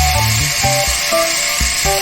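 Background music: short melody notes changing every few tenths of a second over a bass line, with a steady hiss above.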